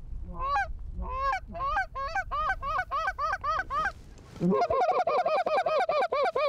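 Geese honking in a quick run of repeated calls, about three to four a second. A short pause comes about four seconds in, then a denser, lower run of overlapping honks follows.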